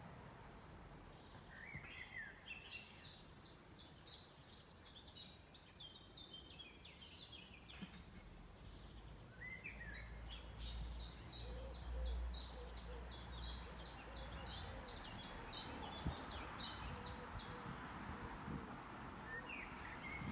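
A songbird singing two long songs, each opening with a few lower notes and then running into a rapid series of evenly repeated high notes, about three a second. Under the song runs a steady rush of wind in the trees.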